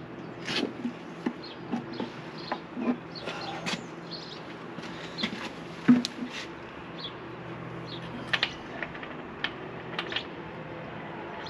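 Scattered light clicks and knocks, irregularly spaced, over a steady low hum.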